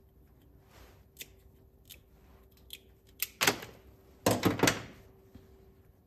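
Hand wire cutters snipping and stripping insulated wire. A few light clicks, then a loud snap about three and a half seconds in and a quick run of three sharp snaps near four and a half seconds.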